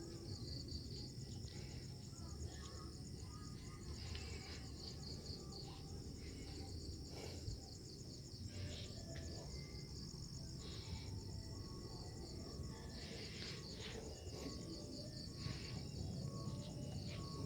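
Night insects, crickets, chirping in a steady high pulsing trill, with a low rumble underneath and a few faint rustles.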